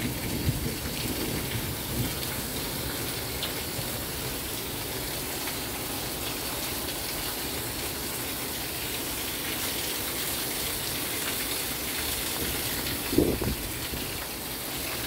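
Heavy rain pouring down in a steady, unbroken hiss. A brief louder sound stands out near the end.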